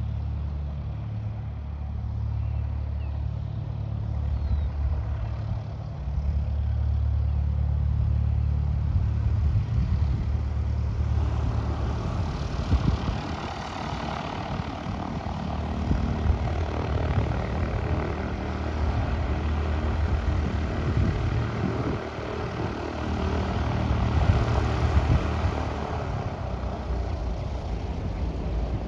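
Light propeller aircraft engine running, with a steady low hum throughout; a louder, wider engine-and-propeller noise builds about eleven seconds in and stays until near the end.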